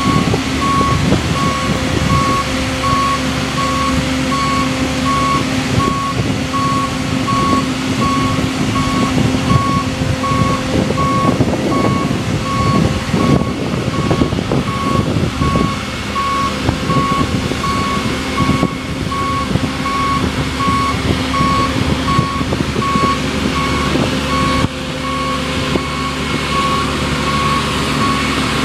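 Marine travel lift moving with a boat in its slings: its warning beeper sounds a steady run of short, evenly spaced high beeps over the steady running of the lift's engine.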